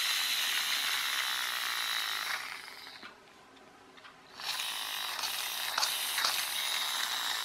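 Toy truck's plastic friction (flywheel) motor whirring with a high gear whine and a clicking rattle as its wheels are spun. It winds down and dies away about three seconds in, then is spun up again about a second later.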